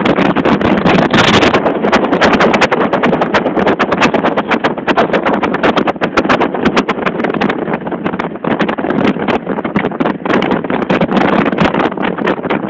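Strong gusty wind buffeting the microphone, a loud rushing noise dense with sharp crackling clicks.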